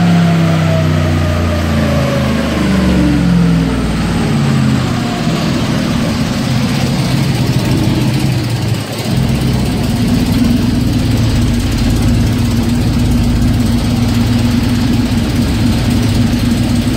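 Twin-turbo 2007 Chevrolet truck engine on a chassis dyno winding down after a pull, its pitch falling steadily over the first few seconds. It then settles into a steady idle.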